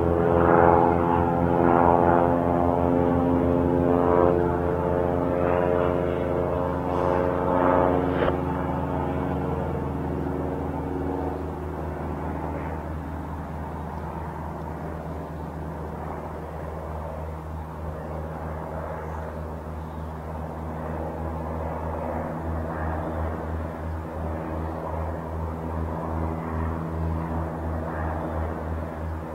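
Aircraft flying overhead, a steady engine drone with a rhythmic low throb. It is loudest in the first several seconds and fades after about ten seconds, leaving a lower, steady drone.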